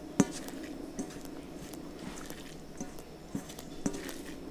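Fingers mixing and squishing rice with curry on a stainless steel plate while eating by hand, with scattered small clicks against the steel, the sharpest one near the start.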